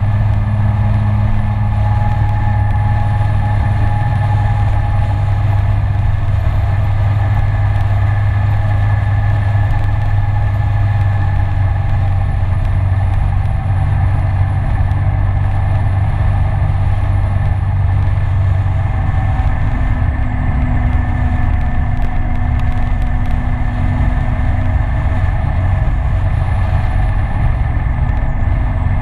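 Kymco Citycom S 300i scooter's single-cylinder engine running steadily at cruising speed, heard from onboard over a steady rush of noise. About two-thirds of the way through, the engine note rises slightly.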